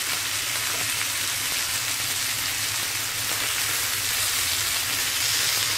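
Two whole pomfret shallow-frying in a spoonful of oil in a nonstick pan, giving a steady sizzle.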